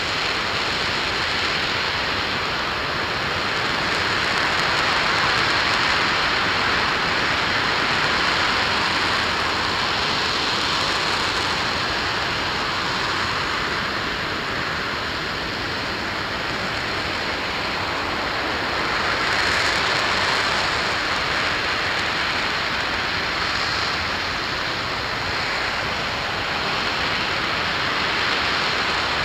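Liquid hydrogen–oxygen RS-25 rocket engine firing during a long hot-fire test, heard as a steady rushing noise that swells and eases slightly over the seconds.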